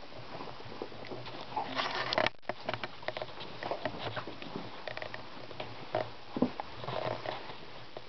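Cats nosing and chewing at catnip on carpet: a run of small, irregular clicks and rustles, busiest about two seconds in.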